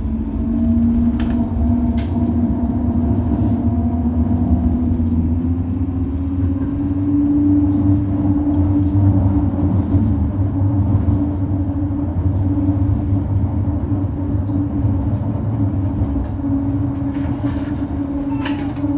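STIB T4000 tram in motion, heard from inside: a steady rolling rumble with a low motor hum that rises in pitch over the first several seconds as the tram picks up speed, then holds steady at cruising speed.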